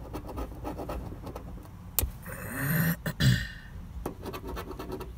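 Coin scraping the latex coating off a scratch-off lottery ticket in quick short strokes, with a sharp click about two seconds in. Around the middle comes a brief breathy vocal sound from the person, the loudest moment.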